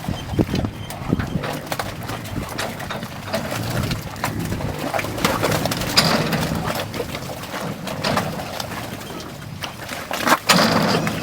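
Bison herd on the move, with hooves clattering and low animal sounds, and louder knocks about six seconds in and near the end.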